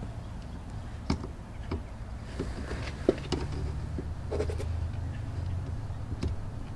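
Sharp plastic clicks and knocks as a pry tool works at the push tabs of a louvered plastic vent in a pickup's rear cab wall, with a short creak about four and a half seconds in. A low hum swells and fades in the middle.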